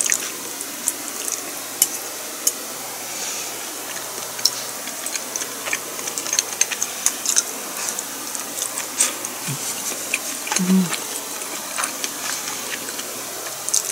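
Someone eating a meal: a scatter of small clicks and taps from tableware and chewing over a steady hiss, with a brief closed-mouth hum about three-quarters of the way through.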